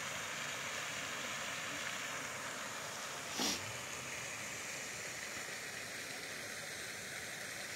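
Steady hiss of water from a pond's spray fountain falling back onto the surface. One short, sharp sound stands out about three and a half seconds in.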